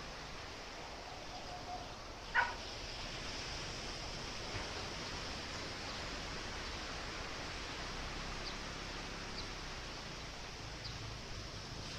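Steady outdoor hiss of wind and sea. About two and a half seconds in comes one short, sharp animal call, and a few faint high chirps follow later.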